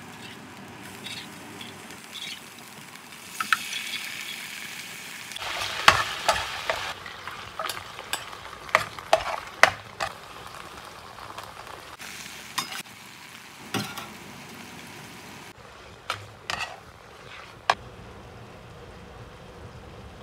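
Food sizzling in a frying pan while it is stirred, with sharp clicks and scrapes of a utensil against the pan, busiest through the middle. Later, cooked linguine is tossed into the pan with tongs, with more scattered clicks over the sizzle.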